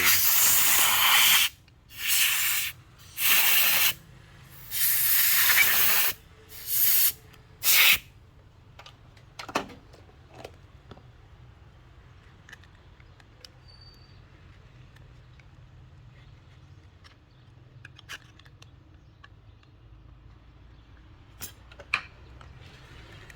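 Compressed air from a strong compressor blown in six short blasts over about eight seconds to clean dust and glue debris off the phone's frame, followed by faint small clicks and taps of handling.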